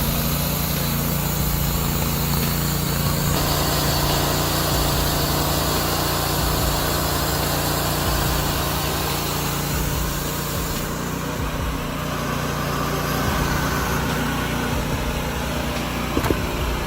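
Small engine of a portable band sawmill running steadily under load, with a change in the sound about three seconds in and again about eleven seconds in.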